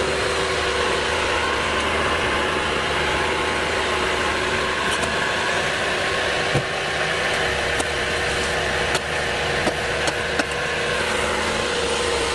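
A machine's engine running steadily, with a few light clicks in the second half.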